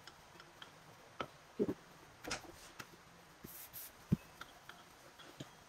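A few scattered light taps and knocks from rolling out and handling rounds of bread dough, the loudest a dull knock about four seconds in.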